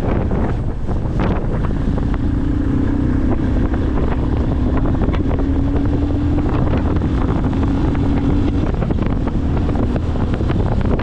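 Strong wind buffeting the microphone on a moving vehicle, with a steady engine drone from about two seconds in to about nine seconds in.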